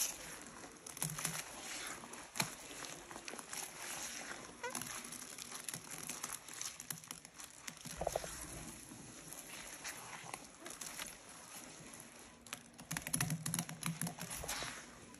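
Thick white cleaning-powder paste being squished and stirred by hand: wet squelching full of many small crackles and clicks, busiest near the end.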